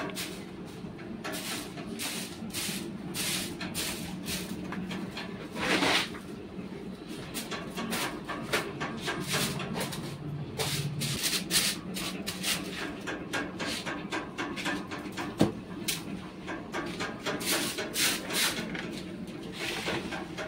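A long grass broom sweeping wet cow dung across a concrete cattle-shed floor: repeated short, scratchy strokes, a few a second, with the dung being pushed into a plastic dustpan.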